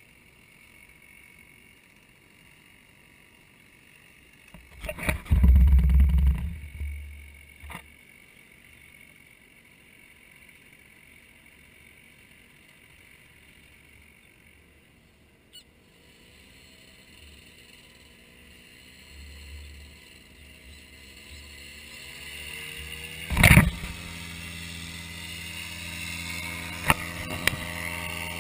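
Nirvana Rodeo paramotor's two-stroke engine and propeller, first faint, then rising in pitch as it is throttled up for the takeoff run, then running steadily at full power. A loud low rumble comes about five seconds in and a sharp knock about twenty-three seconds in.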